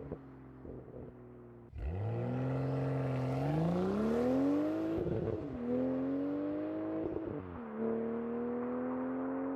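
BMW M240i's B58 turbocharged inline-six with a valved sport exhaust, accelerating hard. It comes on loud about two seconds in, and its pitch climbs, drops at two upshifts and climbs again.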